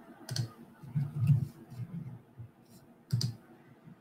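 Computer mouse and keyboard clicks: a handful of separate clicks as photos are brought up on a shared screen.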